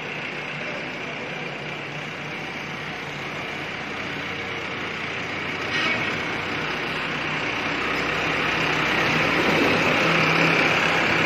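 A farm tractor's engine running steadily as it pulls a loaded trailer. It grows louder as the tractor draws near, with a brief knock about six seconds in.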